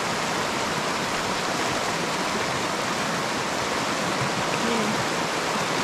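Fast, shallow mountain river rushing and splashing over rocks as white water, a steady unbroken rush with a strong current.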